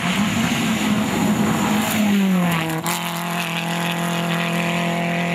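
Rally car driven flat out on a gravel stage, engine at high revs as it approaches. Its pitch drops as it passes about two and a half seconds in, then the engine note holds steady as it pulls away.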